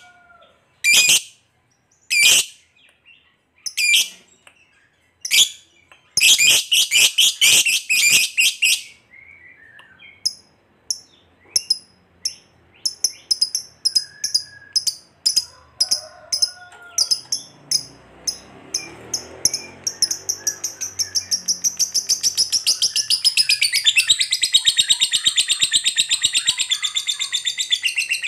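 Lovebird calling: sharp, high single shrieks about once a second, then a dense burst of rapid chattering, softer fast ticking, and near the end a long unbroken rapid chattering trill, the 'ngekek panjang' that keepers prize.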